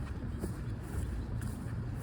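Footsteps of a person walking on a path, about two steps a second, over a low rumble.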